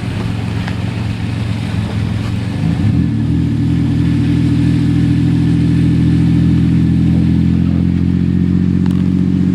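Engine of a four-wheel-drive vehicle running while driving, heard from inside the cabin. It rises in pitch and loudness about two and a half seconds in as it speeds up, then holds steady.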